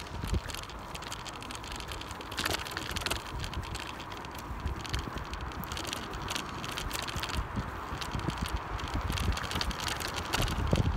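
A ridden two-wheeler rattling and clicking as it rolls over city pavement, with wind rumbling on the microphone, the rumble growing louder near the end.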